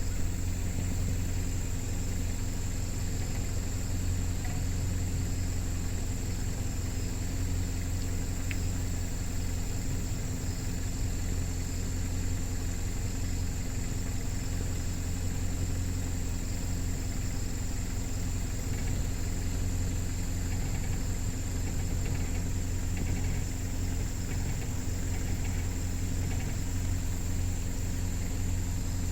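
An engine idling steadily, a low hum that holds level throughout, with a faint steady high whine above it.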